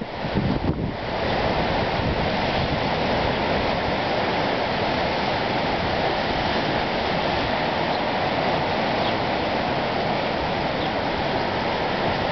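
Sea surf washing steadily on a rocky shore, with a few bumps of wind on the microphone in the first second.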